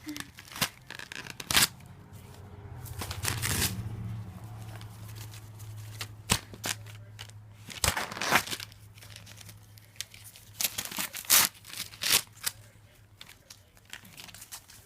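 Paper crinkling and rustling in short, irregular bursts as a cat plays with it, batting and pouncing on it.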